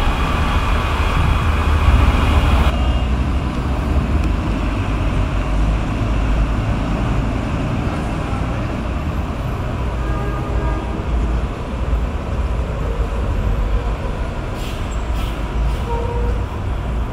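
Low, steady engine and road rumble of a vintage American car driving, heard from inside the cabin. About three seconds in it cuts to street traffic: old cars running and passing, with the same low rumble.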